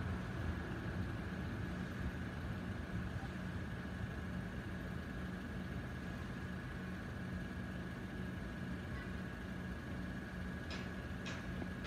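Car engines idling in a queue at a closed level crossing, a steady low rumble, with a steady high-pitched tone throughout. Two sharp clicks come near the end.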